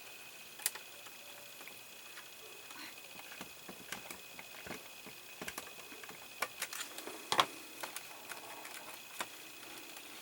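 Small irregular clicks and taps of a small screwdriver and plastic model parts as a tiny screw is driven into a plastic part, the sharpest click about seven seconds in. A faint steady high whine runs underneath.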